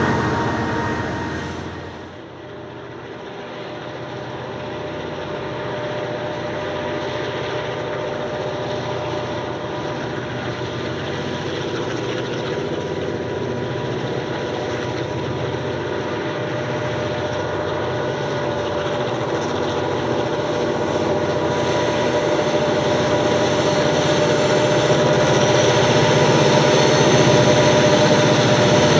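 A loaded grain train's hopper wagons rolling past on the rails. About two seconds in, this gives way to the diesel locomotives CLF2, 4908 and CLP9, whose EMD two-stroke engines are working under load with a steady hum. The engines grow steadily louder as the locomotives approach.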